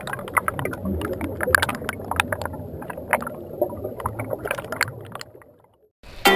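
Air bubbles churning underwater, a dense crackle of pops over a low rumble that fades out about five and a half seconds in. Music starts just before the end.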